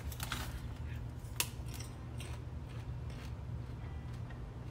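Soft crunching of sweet and salty popcorn being eaten, with light crinkles from the plastic snack bag and one sharper click about a second and a half in, over a steady low hum.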